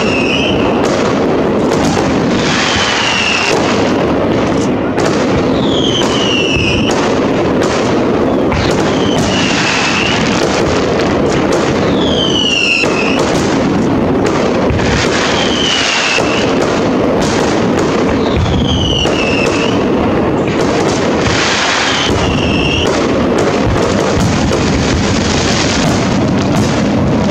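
Fireworks display: a dense, continuous crackle and rumble of bursting shells, punctuated by sharp bangs, with a whistle falling in pitch about every three seconds.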